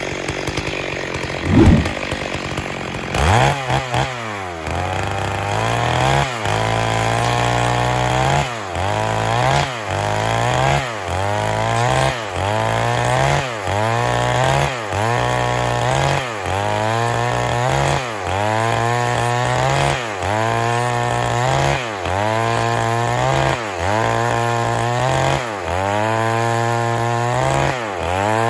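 Stihl MS 382 two-stroke chainsaw running, its engine speed dipping sharply and climbing back up again and again, about once every 1.2 seconds.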